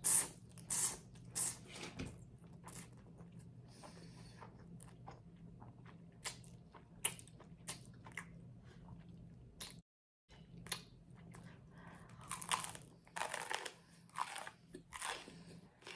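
Close-miked eating of crunchy garlic bread: crisp bites and crunching chews, busiest at the start and again in the second half. The sound drops out completely for about half a second near the middle.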